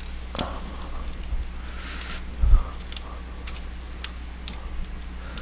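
Hands working cables into their connectors inside an opened Panasonic MSX turbo R computer case: scattered small plastic clicks and rustles, with a dull thump about two and a half seconds in.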